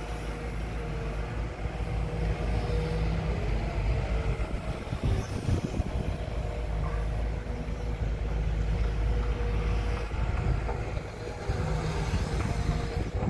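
Sumitomo SH210 excavator running as it digs: a steady diesel engine rumble with a faint steady tone over it, the level rising and falling a little with the work of the arm and bucket.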